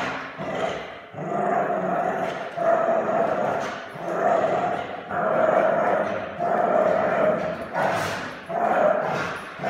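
A blue nose pit bull play-growling while tugging on a rope toy, in a string of long growls, one after another about every second.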